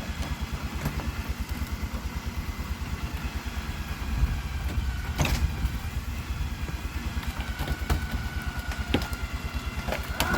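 Vehicle engine idling steadily with an even low pulse, while the outhouse is held on a tightened line; a couple of sharp knocks come about five and nine seconds in.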